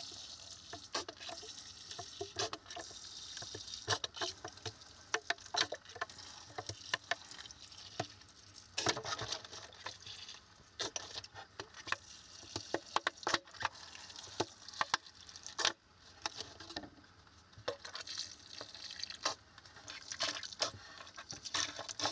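Water from a watering can sprinkling onto potted cacti, with irregular pattering as drops and streams hit the soil and the plastic and terracotta pots.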